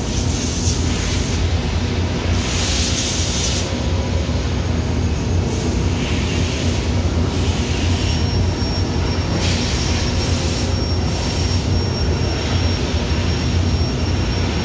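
Doosan CNC vertical mill running at idle with a steady low hum, with bursts of hiss coming and going every second or two. A faint high whine joins about halfway through.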